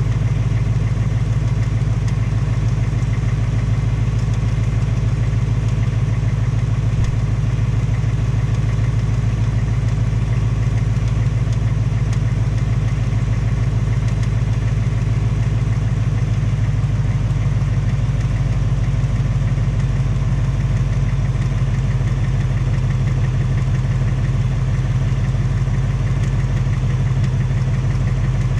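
2018 Mustang GT's 5.0 L Coyote V8 idling steadily with the tapping/knocking sound of its second engine, the so-called BBQ tick the owner links to piston slap.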